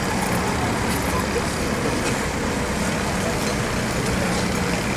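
Steady road-traffic noise with a low rumble, mixed with indistinct voices.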